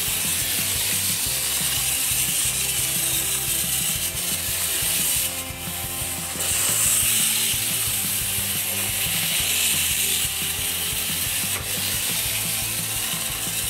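Wind-up Capsule Plarail Thomas toy engine running on plastic track, its spring motor and gears whirring steadily. The sound dips and changes about five seconds in, then picks up again a little later.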